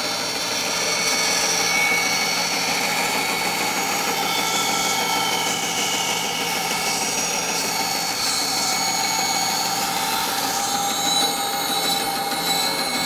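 Laguna 14BX bandsaw running steadily, its 3/8-inch blade cutting a curve through 3/4-inch maple.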